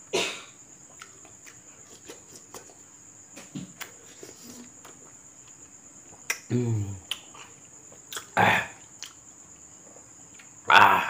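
A man eating ripe mango slices: soft wet chewing and lip-smacking clicks, a low falling voiced grunt about six seconds in, and short breathy mouth bursts near eight seconds and near the end. A steady high insect trill runs underneath.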